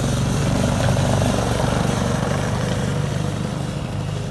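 Arctic Cat 120 youth snowmobile's small two-stroke engine running as the sled passes close by and pulls away. It is loudest about a second in and fades toward the end. To an onlooker it sounds as if the choke is still on.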